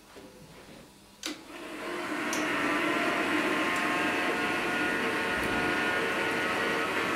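Gas forge being lit: a sharp click about a second in, then the burner comes up to a steady rushing noise over the next second and keeps running.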